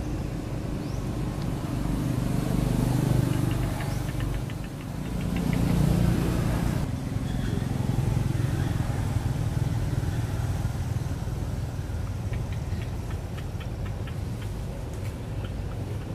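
Low rumble of motor vehicles, swelling twice as vehicles pass about three and six seconds in, with a few faint rapid high ticks.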